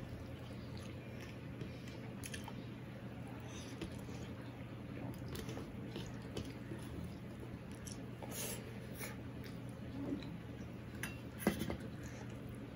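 Quiet chewing with scattered soft clicks as fingers mix rice on a steel plate, and one sharper click near the end.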